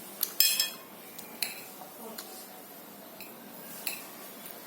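Spoon clinking against a plate or bowl while eating: a few sharp clinks with a short ring, the loudest a quick rattle about half a second in.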